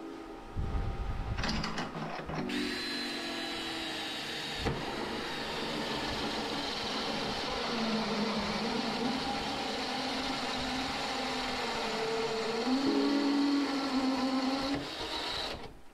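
Ryobi cordless drill running as it bores a hole through the underside of a car hood, starting a couple of seconds in; its motor pitch sags and climbs again as the bit bites and frees.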